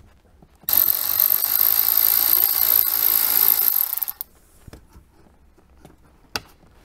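Cordless electric ratchet running for about three seconds with a steady high whine, backing a dash-panel screw out of a Jeep Wrangler JK's dashboard. A couple of light clicks follow.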